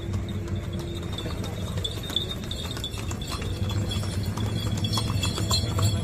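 Horse hooves clip-clopping as a horse walks past, the clops coming more often in the second half, over a steady low outdoor rumble.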